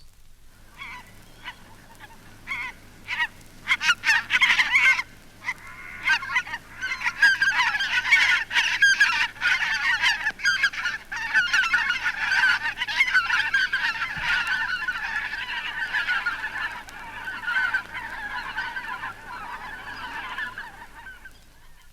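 A flock of white-fronted geese calling as they fly over. A few scattered honks at first build after about six seconds into a dense, overlapping chorus that thins out near the end.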